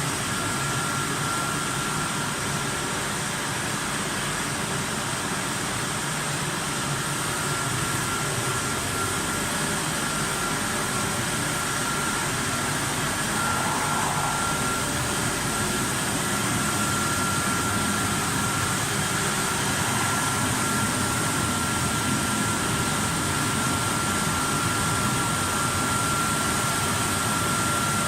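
Vertical flat glass washing machine running: a steady, even mechanical hiss with a thin high whine that gets stronger in the second half.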